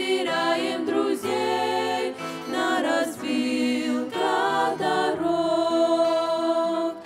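A girls' vocal group singing a slow Russian-language hymn in harmony, several voices together.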